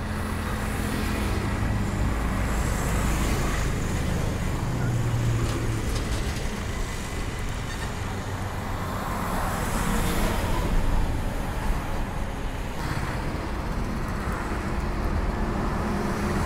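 Steady outdoor noise of road traffic and rushing water, with engine hum that swells and fades as vehicles go by.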